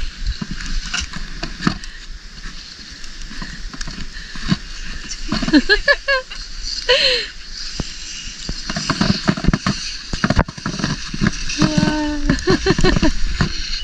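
Snow crunching and a plastic sled scraping over it in short irregular crackles as it is shoved along. Short wordless voice sounds come about five to seven seconds in and again near the end.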